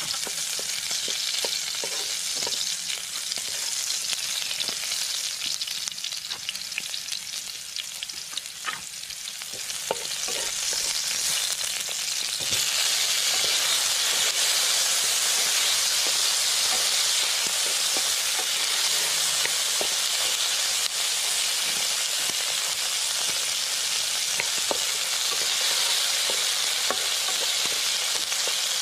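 Chopped onion and garlic frying in oil in a wok, with steady sizzling as a wooden spatula stirs and taps against the pan. About twelve seconds in, the sizzle gets louder once tomatoes go into the hot oil.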